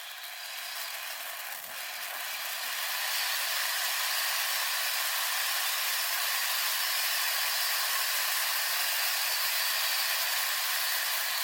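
A steady hiss, building over the first few seconds and then holding level, with no bangs or crackles in it.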